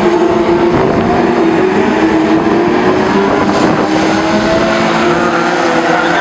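BriSCA F2 stock car engines racing at full throttle: a loud, steady engine drone whose pitch wavers up and down as the cars lap the oval.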